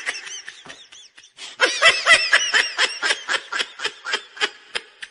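High-pitched laughter: rapid runs of short giggles, a brief run at the start and a longer one from about a second and a half in that trails off.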